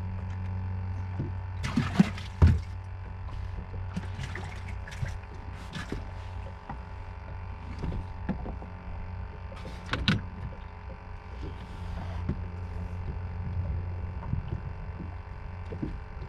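Knocks and clatter from fish and tackle being handled on a small fishing boat's deck, with two sharp knocks about two seconds in, over a steady low hum.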